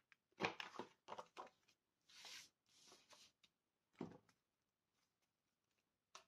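Quiet paper handling with a few short clicks from a corner-rounder punch as the corners of the paper panel are rounded, a soft rustle of paper sliding, and one sharp knock a little later.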